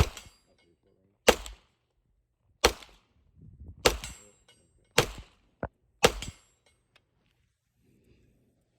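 Six gunshots fired in steady succession, roughly one every second and a quarter, each a sharp crack with a short tail.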